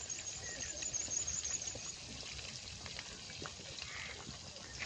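Chicken pieces deep-frying in hot oil in a metal pan: a faint steady sizzle with small scattered pops and crackles.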